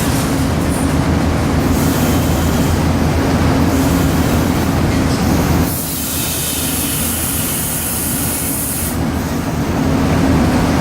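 Steady industrial machinery hum from an automated spray-booth cell, with a bright high hiss of air for about three seconds past the middle.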